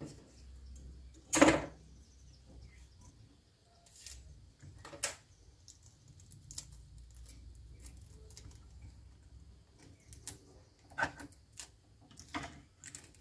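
Hands handling a roll of orange insulating tape: a short rasp about a second and a half in as tape is pulled off the roll, then scattered light clicks and taps of the tape and board being handled.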